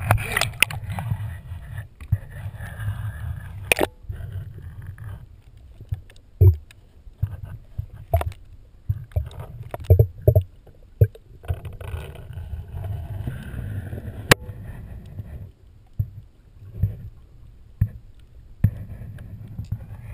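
Water sloshing and gurgling around a waterproof action camera at the waterline as it dips under and comes back up, heard mostly as a dull, uneven low rumble with irregular surges. A couple of sharp knocks come through, one about four seconds in and one past the middle.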